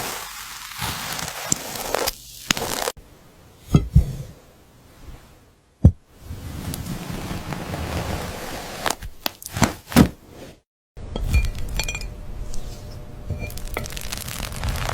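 Crumbly spread crackling and crumbling, with light clinking taps. Sharp taps stand out around four, six and ten seconds in, and the sound cuts abruptly a few times.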